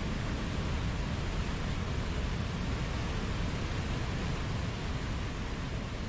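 Mountain waterfall: a steady, unbroken rush of falling water with a deep low rumble underneath.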